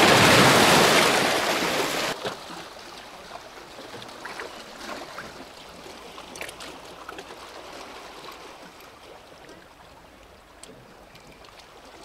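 Sea waves splashing against shoreline boulders, loud for the first two seconds, then, after a sudden drop, a quieter steady wash of surf with a few faint clicks.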